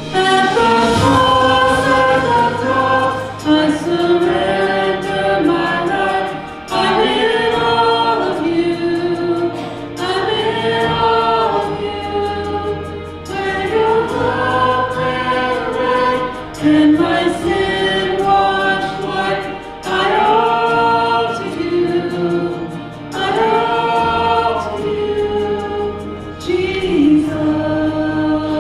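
Worship song sung by a group of voices with musical accompaniment, in even phrases of about three seconds over sustained low notes.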